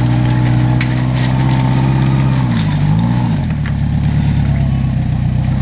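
Rock buggy's engine running hard as it crawls up a rocky ledge, with the revs wavering briefly about halfway through.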